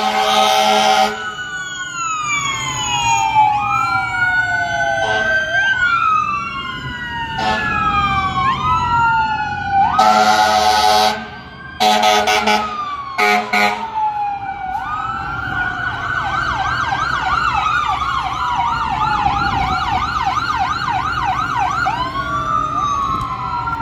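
Fire engine on an emergency run, its siren wailing in slow rising and falling sweeps and switching to a fast yelp about two-thirds of the way through. Loud horn blasts sound at the start, then again about ten seconds in, followed by two short ones.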